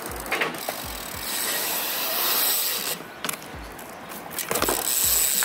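BMX bike riding a concrete skatepark bowl: tyres rolling on the concrete, with mechanical clicking and rattling from the bike. A steady low thump about twice a second runs underneath.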